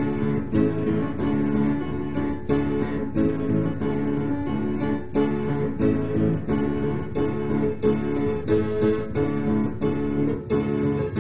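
Music of a strummed acoustic guitar, chords struck in a steady rhythm.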